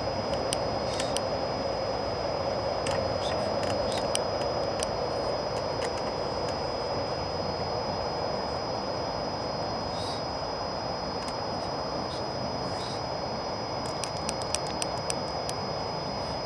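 Steady background rumble with a constant high-pitched whine and scattered small clicks, with a quick run of clicks near the end.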